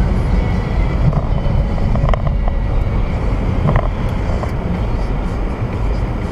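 Steady low rumble of a car driving on a city street, heard from inside the cabin through a dashcam, with a couple of brief faint blips partway through.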